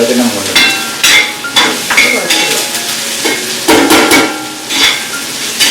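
Small onions and dried vegetables sautéing in hot oil, sizzling while a metal spoon stirs them, with repeated scrapes and ringing clinks of the spoon against the pan.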